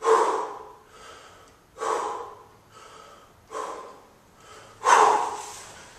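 A man's hard breathing under the effort of one-arm 32 kg kettlebell snatches: four loud, sharp breaths, about one and a half seconds apart, each dying away quickly.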